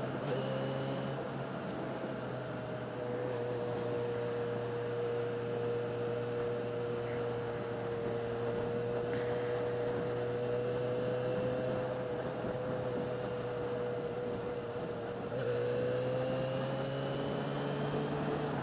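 Yamaha XJ6 motorcycle's inline-four engine running at a steady cruise, with road and wind noise, heard from a helmet-mounted camera. Its pitch rises over the last few seconds as the bike speeds up.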